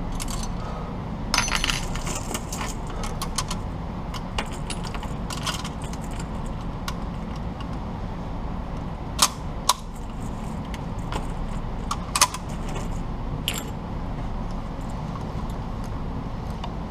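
An M249 SAW being loaded: the linked belt of cartridges jingles and rattles as it is handled and fed into the gun, with a few sharp metal clacks from the gun's parts, over a steady low hum.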